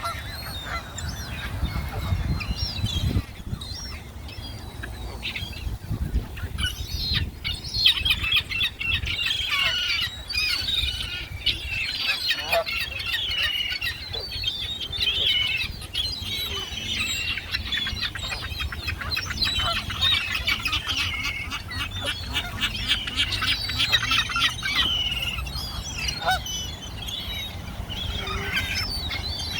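A flock of birds calling over one another in a dense, unbroken chatter of short calls.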